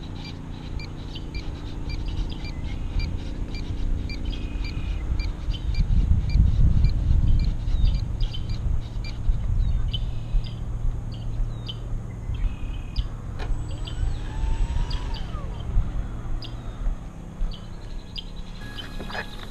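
Outdoor ambience: a low rumble, loudest about six to eight seconds in, under birds chirping in short, often repeated calls, with a few sliding calls in the middle.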